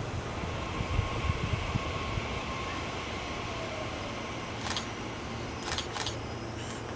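Steady rumble and hum of a Nishitetsu electric train, with a faint whine that fades out about four and a half seconds in. Four sharp camera-shutter clicks come in the last couple of seconds.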